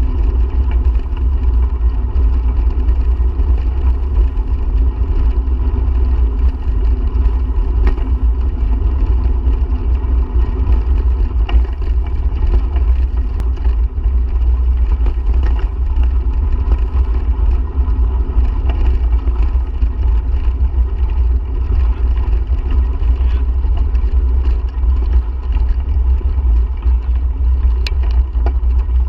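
Steady, loud wind buffeting on the microphone of a camera carried on a bicycle ride, a deep rumble with a faint rush of tyres on the trail underneath.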